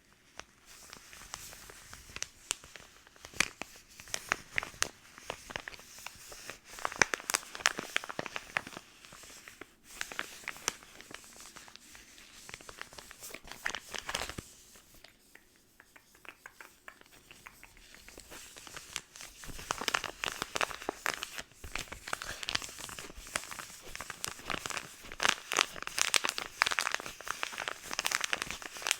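Close-miked crinkling and tearing of product packaging, in irregular crackly spells with a quieter pause about halfway.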